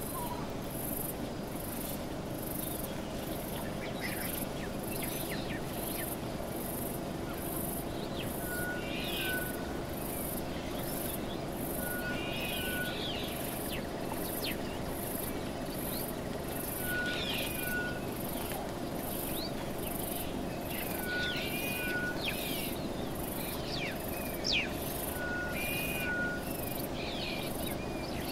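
Bush ambience: insects chirping in a steady, high-pitched pulsing rhythm, with a bird repeating a short two-note whistle every few seconds among other brief bird calls, over a steady low hum.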